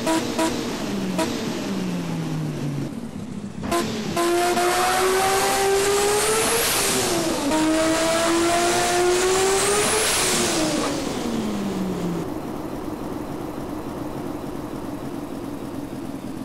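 Toyota 2JZ turbocharged straight-six revving. At the start the revs fall away with a couple of sharp pops. From about four seconds in it climbs hard in pitch, dips briefly, climbs again, then drops back and settles to a steadier, quieter run.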